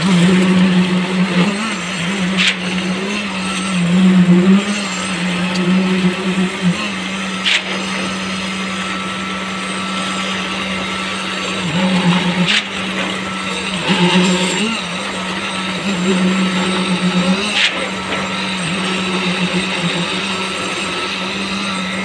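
Concrete poker vibrator running with a steady high hum that wavers as it is worked through the wet concrete. A sharp knock comes about every five seconds, the stroke changeover of the concrete pump feeding the hose.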